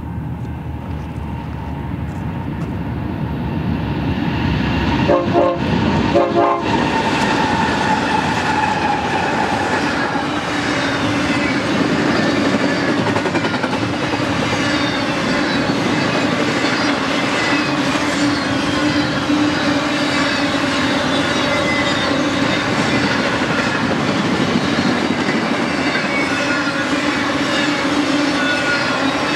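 BNSF GE ES44 diesel locomotives approach, growing louder, and sound two short horn blasts about five seconds in, then pass with their engine sound falling in pitch. The train's double-stack containers and highway trailers on flatcars then roll by steadily, with rail clatter and faint high-pitched wheel squeals.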